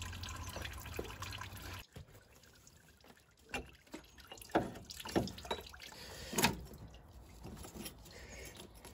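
Coolant trickling for the first couple of seconds. Then come several sharp knocks and clunks as the old water pump is worked loose and pulled out of the Ford Fiesta ST150's engine bay.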